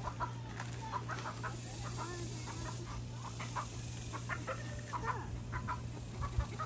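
Chickens clucking in short, scattered calls.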